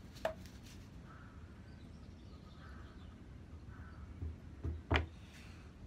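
Quiet workshop room tone with faint handling noises, and one sharp click about five seconds in as a plastic wood-glue bottle is handled and opened.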